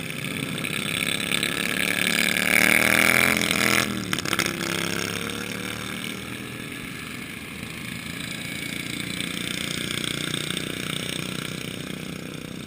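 Racing lawn tractor engine passing close by: its buzzing note climbs as it approaches, is loudest around three seconds in, and drops sharply just before four seconds as it goes past. After that, other mower engines keep running in a steadier, quieter drone.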